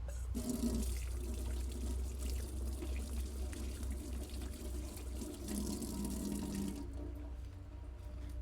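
Water running or pouring steadily for about six seconds, then stopping fairly abruptly.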